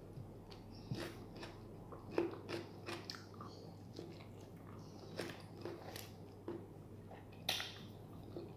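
A person eating: close chewing with faint, irregular wet mouth clicks and smacks, and a bite into a soft bread sandwich about four seconds in.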